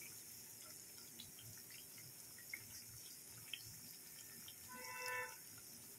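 Thekua (wheat-flour and sugar cakes) deep-frying in oil over a low flame: a faint, steady sizzle with scattered small ticks and pops. About five seconds in, a short high-pitched tone sounds briefly.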